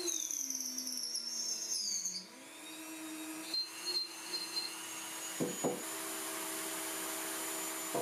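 Dremel 3000 rotary tool whining as it cuts tupelo wood with a small carving bit. Its pitch falls over the first two seconds as it slows, then it picks up again and runs steadily.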